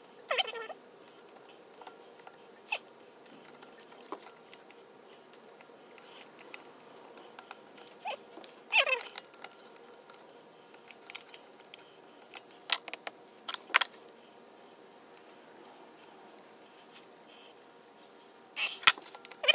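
Sparse clicks and taps of hand tools and small metal engine parts being handled during assembly. There are two short squeaks that fall in pitch, about half a second in and near nine seconds, and a louder pitched sound near the end.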